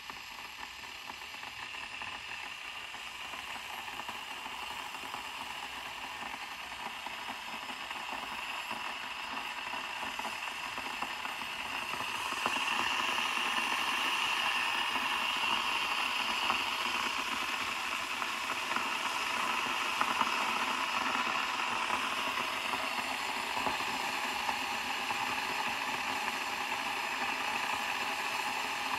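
Electric kettle heating water: a steady hiss of the water nearing the boil, slowly getting louder and stepping up about twelve seconds in.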